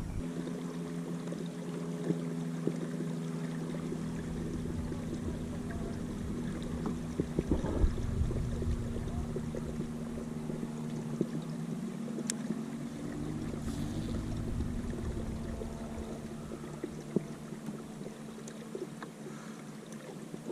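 A small boat motor humming steadily, its pitch shifting upward about two-thirds of the way through, with scattered knocks and splashes.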